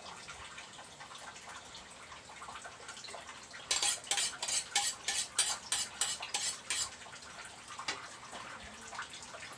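A metal kitchen utensil clattering against cookware in a run of about ten quick strokes, a little over three a second, lasting about three seconds, as egg is worked into the ampalaya with tofu.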